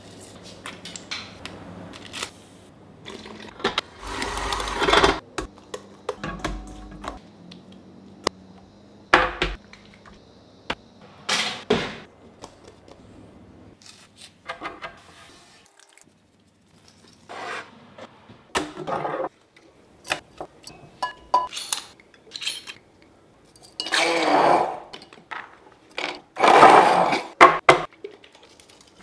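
Quick succession of short kitchen-prep sounds: taps, clinks and scrapes of ingredients and utensils against a stainless-steel bowl, a wooden board and a steel tray, with a few longer, louder noisy bursts near the end.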